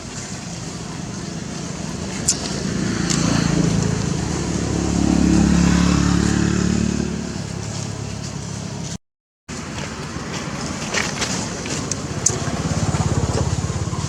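A motor vehicle's engine running close by, swelling louder around the middle and easing off, with a few sharp ticks. The sound cuts out completely for about half a second some nine seconds in.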